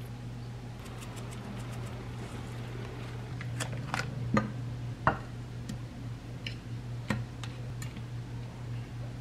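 Light clicks and knocks of kitchen utensils and a pan being handled, over a steady low hum. The sharpest knocks fall between about three and a half and five seconds in, and another comes near seven seconds.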